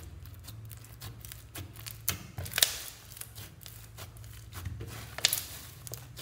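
Foam-bead slime (floam) being squeezed and kneaded by hand, giving a run of crackly, crinkling pops and sticky snaps as the beads are pressed together. Two louder pops stand out, one about two and a half seconds in and one about five seconds in.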